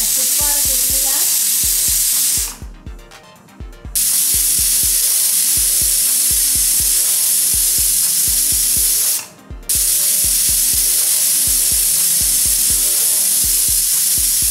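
Stovetop pressure cooker whistling: steam hisses loudly past the lifted weight in three bursts, the first about two seconds long, then two of about five seconds with a brief break between. The whistles mark the lentils cooking under full pressure, and the last burst is the third and final whistle that tells the dal is done.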